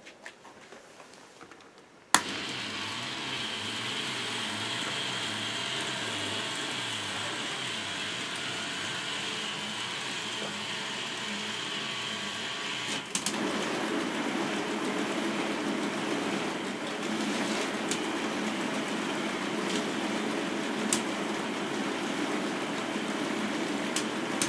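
K'nex robot arm running its tape program: a steady mechanical running of its motor-driven plastic gear trains, starting abruptly with a click about two seconds in. About halfway through the sound turns lower and fuller, with a few sharp clicks near the end.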